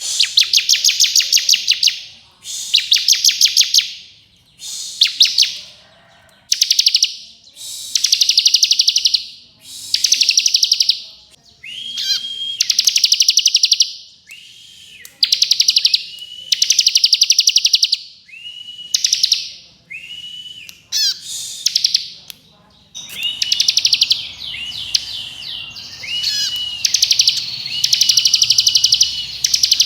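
Bar-winged prinia (ciblek kristal) singing its rapid, buzzing 'ngebren' trill in bursts of one to two seconds, repeated with short gaps. Some phrases open with a short whistled note, and the phrases come closer together near the end.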